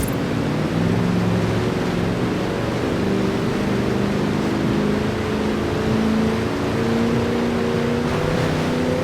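Lincoln Continental being driven: steady road and wind noise, with engine tones that step gradually higher in pitch as it picks up speed.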